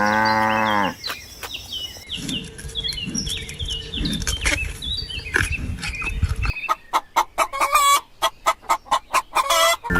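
Chickens clucking, with many short high peeps falling in pitch, after a low drawn-out animal call that ends about a second in. From about six and a half seconds the clucking gives way to a quick series of short sharp calls or clicks, about three a second.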